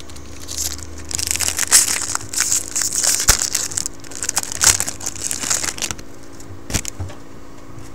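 Foil wrapper of a 2012 Topps football jumbo pack crinkling as the pack is handled and torn open, from about half a second in until about six seconds, followed by a couple of light clicks.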